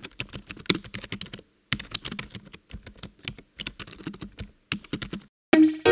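Rapid typing on a computer keyboard, quick clicking keystrokes in two runs with a short pause about a second and a half in. Near the end the typing stops and a distorted electric guitar comes in.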